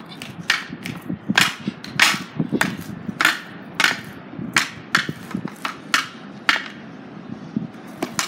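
Hockey stick blade clacking against the concrete and a small street hockey puck as a skater stickhandles: sharp, irregular clacks, about one to two a second.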